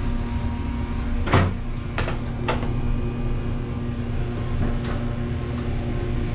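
Commercial dish machine running with a steady hum and low rumble, the motor with a bad bearing that the motor job is meant to fix. A loud knock about a second in and two lighter knocks shortly after.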